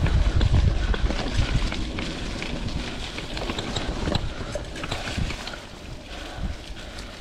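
Vintage Klein Attitude Comp mountain bike rolling over dirt singletrack: tyre rumble with rattles and clicks from the bike as it goes over the trail, and wind buffeting a chest-mounted camera's microphone. The rumble is heaviest in the first second or two and eases toward the end.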